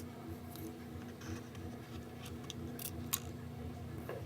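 Plastic spudger prying at an iPhone 3GS battery held down by adhesive: scattered faint clicks and scrapes, with one sharper click a little past three seconds in, over a steady low hum.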